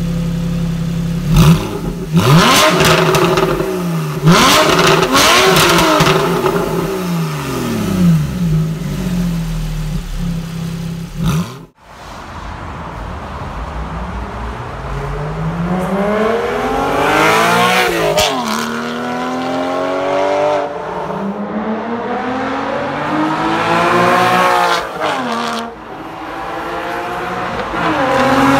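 Porsche 991.1 Carrera flat-six through an AWE SwitchPath exhaust, idling and then revved sharply several times while standing. After a cut, the same car accelerates hard on the road, its pitch climbing and dropping back between gears, and drives past.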